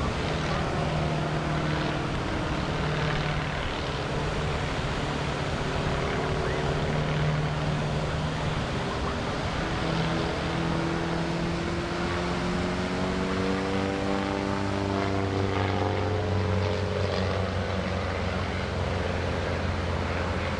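Pitts aerobatic biplane's piston engine and propeller running through manoeuvres, a steady low drone whose pitch shifts and climbs in the second half as power and airspeed change.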